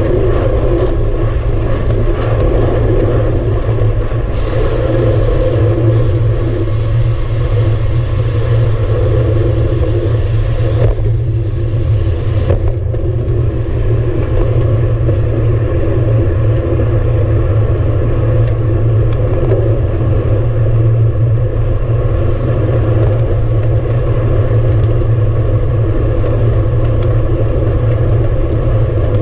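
Wind buffeting the camera's microphone on a moving road bike, a steady low rumble with tyre noise from the asphalt. From about four seconds in a brighter hiss joins, dropping away about twelve seconds in.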